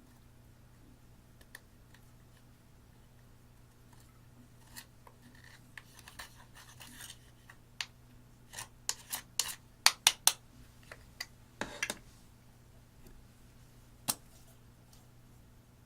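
Hands at work on an eyeshadow palette, with a run of sharp clicks, snips and short scrapes that comes thickest in the middle, and one sharp snap near the end.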